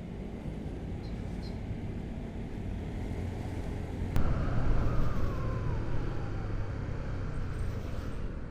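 Riding a Honda CB150R motorcycle in traffic: a steady low rumble of the engine and road. About four seconds in there is a sharp click, the sound gets louder, and a whine slides down in pitch over the next couple of seconds.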